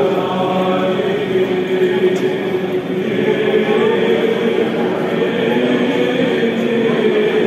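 Byzantine chant sung by a choir, with a steady held note underneath a moving melody.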